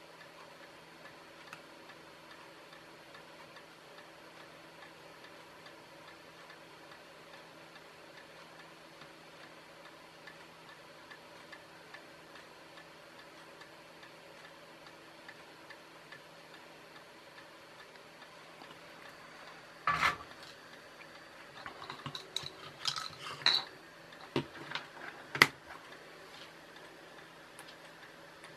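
Quiet room tone with a low steady hum and faint scattered ticks during soldering, then a run of sharp clicks and knocks about two-thirds of the way through as the soldering iron is set down and parts are picked up on the workbench.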